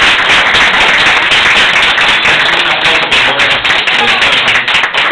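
Audience applauding loudly, a dense, steady patter of many hands clapping at the end of a song.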